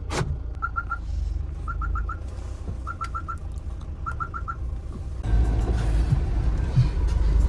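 A car's reversing beeper sounds in short groups of three or four high beeps, about once a second, over the low running of the engine, with a sharp knock at the very start. After about five seconds the engine's low rumble grows louder as the vehicle strains to climb where it had got stuck.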